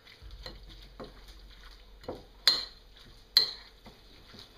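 Raw minced meat and soaked vegetable flakes being mixed by hand in a ceramic bowl: soft, irregular wet squelches, with two sharp clicks against the bowl a little past halfway and about a second later.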